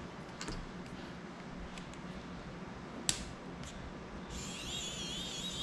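Small sharp clicks and taps of screws, a screwdriver and a plastic prop guard being handled while the guard is fitted to an FPV cinewhoop drone, the loudest click about three seconds in. Near the end a high, wavering warble sets in.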